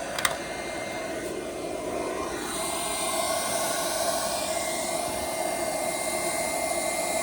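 A 1300-watt handheld induction heater running with a steady fan whir and a faint high whine, with a click about a quarter of a second in; the whir grows a little fuller about two and a half seconds in.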